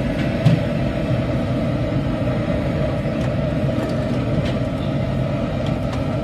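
Steady low rumble of street noise around a roadside food stall, with a few light clinks of a spoon against a steel bowl, the sharpest about half a second in.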